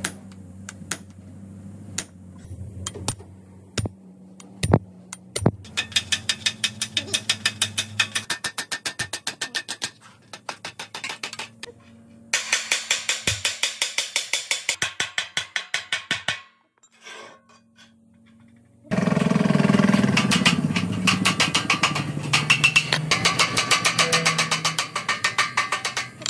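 A hammer driving a steel chisel through thin sheet steel: rapid, evenly spaced metallic taps, several a second, in runs of a few seconds with pauses and a few single blows between. A steady low hum runs beneath parts of it.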